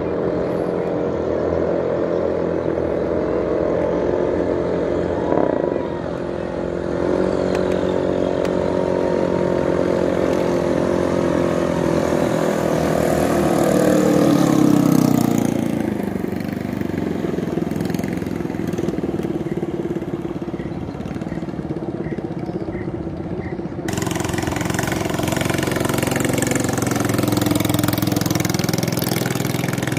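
Racing katinting longtail boat engines running flat out. One engine's steady high note drops in pitch about halfway through as the boat passes. After a sudden change in the sound near the end, a second boat's engine is heard.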